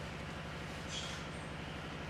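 A steady low motor rumble with a fast, even pulsing, and a brief high squeak about a second in.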